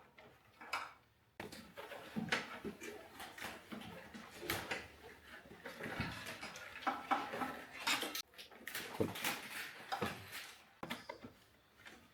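Irregular rustling and light clicking of a wiring harness and plastic wire loom being handled while the junction of the looms is wrapped with tape.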